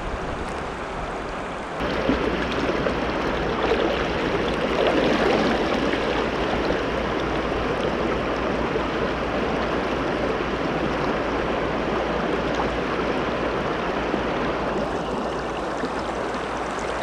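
Shallow, clear river running over stones, a steady rushing of water that gets louder and brighter about two seconds in, with a low rumble underneath.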